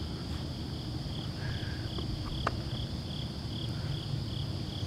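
Night insects, crickets, chirping in even pulses a little over twice a second over a steady high trill. A low steady rumble sits underneath, a train heard from far off, and there is a single sharp click about halfway through.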